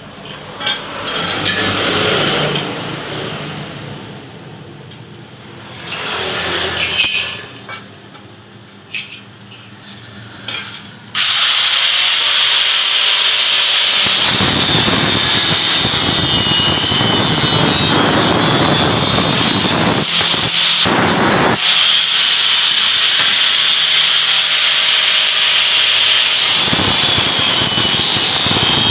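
Irregular knocks and short bursts of machine noise, then about eleven seconds in a power tool starts and runs loud and steady with a high grinding whine, working the stainless steel parts of a noodle press machine.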